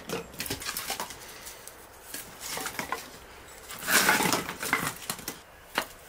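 Dry firewood sticks knocking and scraping against each other as they are laid by hand on a hearth, with irregular light clacks and a louder clatter about four seconds in.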